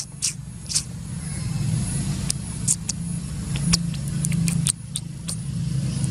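A motor vehicle's engine running steadily with a low hum, with scattered short high-pitched ticks over it.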